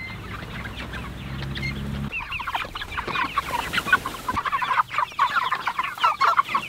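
A flock of six-week-old Cornish cross meat chickens clucking and peeping, many short high calls overlapping. The calls start about two seconds in, after a low steady hum.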